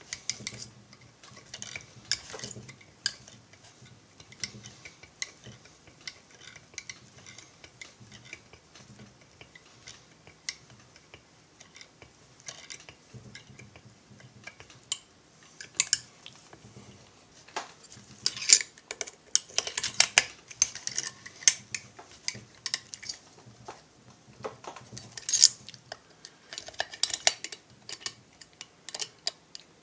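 Sharp metallic clicks and clinks of hand tools working the cylinder base screws of an MS440-clone chainsaw as they are tightened down. The clicks come in irregular clusters, busiest about two-thirds of the way through.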